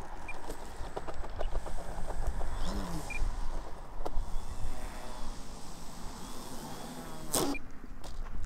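Wind rumbling on the microphone, with scattered faint clicks and one sharp click about seven seconds in.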